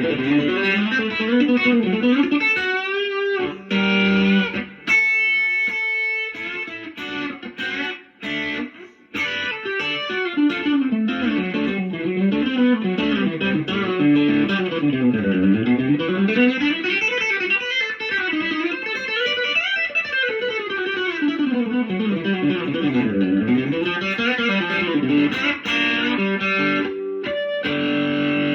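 Electric guitar, a Fender American Original '50s Telecaster played through a Dr. Z tube amplifier. It plays fast single-note runs that sweep up and down in pitch, with a few held chords and notes left ringing.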